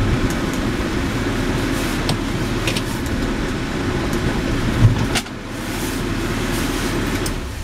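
Car engine running, heard from inside the cabin, with a few light clicks; the sound drops a step about five seconds in.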